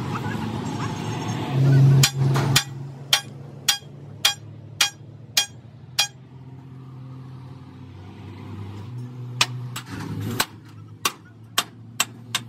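Hammer blows on metal, about two a second, in two runs of about seven strikes each with a pause of a few seconds between them, over a low steady hum.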